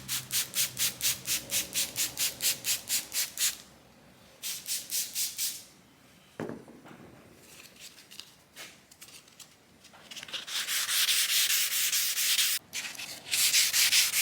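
Wet sanding by hand: 600-grit paper on a soft sanding block rubbed back and forth over a car's body panel with soapy water, taking out 320-grit scratches before paint. Rhythmic strokes at about four a second, pausing twice, with a single low thud in the middle, then faster and louder continuous sanding for the last few seconds.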